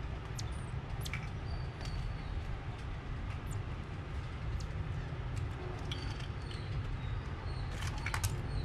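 Marmosets clambering over a wooden crib rail and the wall: scattered faint clicks and scratches, and a few brief high chirps, over a steady low rumble.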